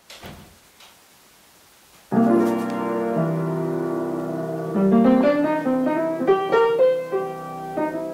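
Background music begins abruptly about two seconds in: a long held chord, then a melody of shorter notes.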